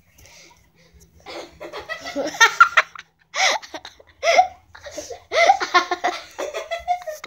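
Young girls laughing hard in repeated short bursts, starting about a second in.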